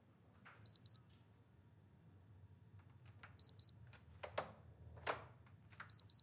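Hotel room key-card door lock giving a short double beep three times, with clicks from the lever handle being tried in between: the lock is refusing the card, which he takes for a freshly issued card that has been demagnetized.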